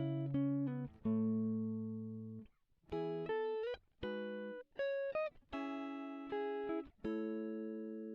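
Background music: slow plucked-string chords and single notes, each struck and left to ring out and fade, with a few sliding notes.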